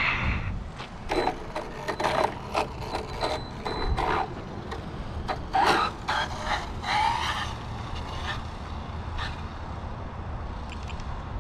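Low, steady rumble of road traffic, with an irregular string of short, sharp sounds a few tenths of a second apart over the first two-thirds.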